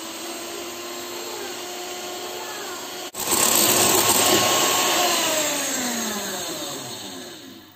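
Electric hand mixer running, its beaters whipping cream in a glass bowl until firm. It breaks off briefly about three seconds in and comes back louder, then its pitch falls and it winds down near the end.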